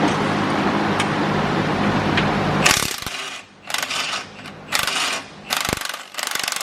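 Ratchet wrench clicking in several short spurts, starting about three seconds in, as bolts are worked on the car's front end. A steady hum runs underneath before the clicking.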